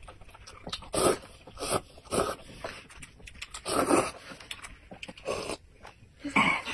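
Slurping of instant noodles from a paper cup: a run of about six loud, wet sucking slurps, the longest about four seconds in, and a last slurp of the broth near the end.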